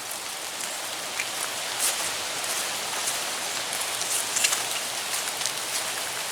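Rain mixed with snow falling: a steady hiss of fine patter with many small scattered ticks.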